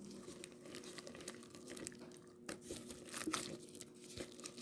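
Clear glue slime being stirred as the detergent activator sets it: quiet, irregular sticky crackling and squishing, with a few louder squelches about halfway through.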